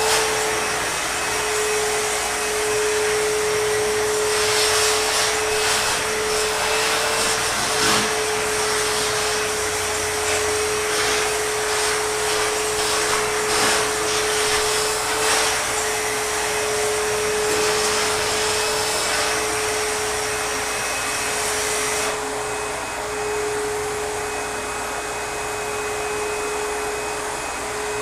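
ProTeam backpack vacuum running steadily: a constant motor whine over the rush of air, with a scatter of short knocks through the first half. About 22 seconds in, the high hiss of the airflow drops and the run goes on a little quieter.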